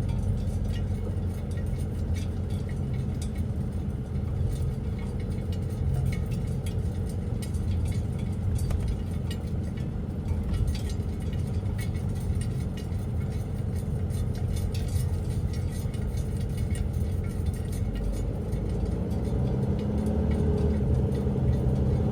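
Truck engine running steadily under way, its pitch rising near the end as it speeds up.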